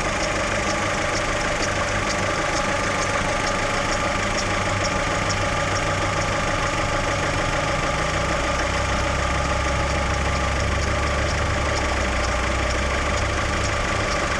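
Chevrolet Lacetti engine idling on warm-up, with a light ticking recurring a few times a second over its steady hum. A deeper drone swells in partway through. This is the extraneous noise the owner hears only from a cold engine, which fades once the engine is warm.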